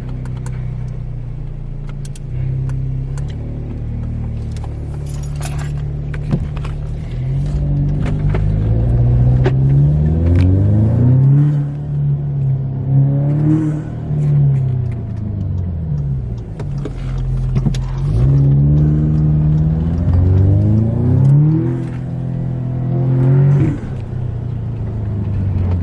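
Audi S3's turbocharged four-cylinder engine, breathing through a new carbon fibre air intake, running on the road. It holds a steady note at first, then its pitch rises and drops several times as the car accelerates and shifts gears.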